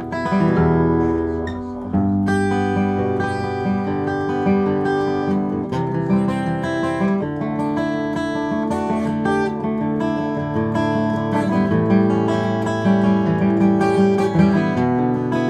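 Gibson SJ-200 jumbo acoustic guitar being played, picked notes and chords in a running tune.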